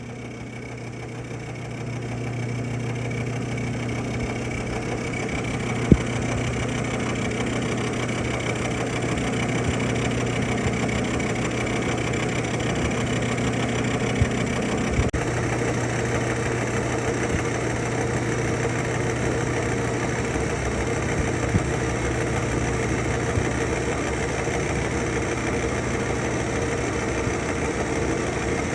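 Kearney & Trecker 3CH horizontal milling machine running steadily, its cutter facing a cast iron straight edge casting at a moderate depth of cut. The sound builds over the first couple of seconds and carries a few sharp clicks, one about six seconds in.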